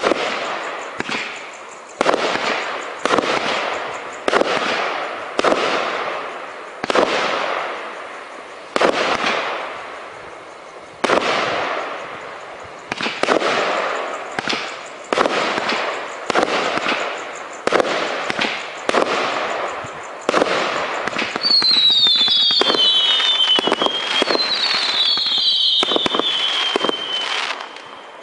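Blockbuster 84-shot firework cake firing: a sharp bang about every second, each trailing off in crackle. Near the end comes a rapid, continuous barrage with two falling whistles, then the firing stops.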